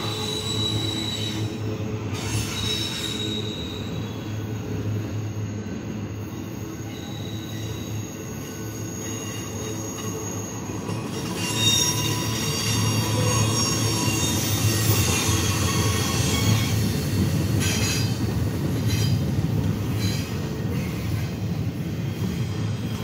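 A freight train of double-stack container well cars rolling past. There is a steady low rumble of wheels on rail, with thin, high-pitched metallic squealing from the cars. The squeal grows louder and takes on more tones about halfway through.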